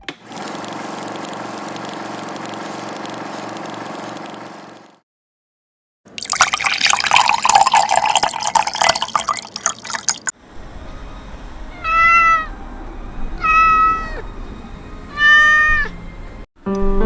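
A cat meowing three times, each meow a short call that rises and falls. Before the meows come about five seconds of steady hum with a low, even pulse, a second of silence, and then about four seconds of loud rushing noise, the loudest part.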